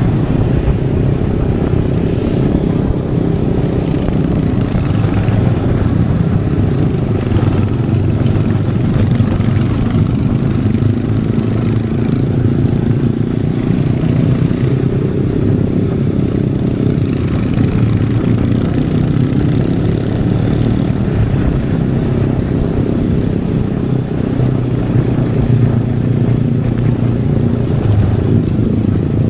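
Royal Enfield Hunter 350's single-cylinder engine and exhaust running steadily under way, the pitch drifting slightly up and down.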